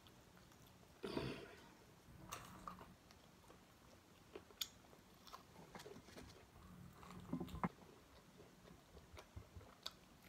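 Faint close-up eating sounds: chewing and biting into fried chicken wings, with scattered short smacks and clicks.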